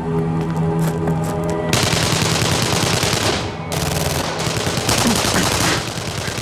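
Automatic rifle fire over background music: rapid single shots at first, then a dense, sustained volley from about two seconds in, followed by two shorter bursts.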